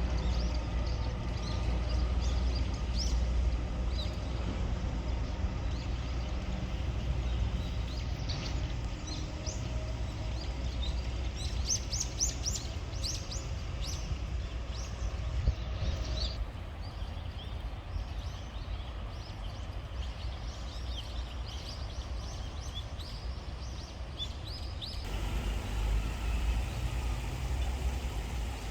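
Small birds calling in quick, high chirps, in a dense flurry around the middle, over a steady low rumble of road traffic.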